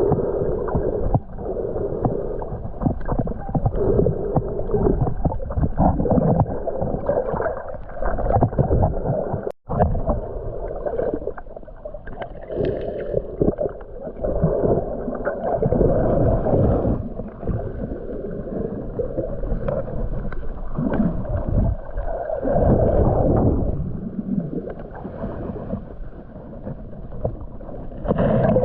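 Muffled sloshing and gurgling of water heard through a waterproof camera during snorkelling, dull and irregular. It breaks off for a moment about ten seconds in.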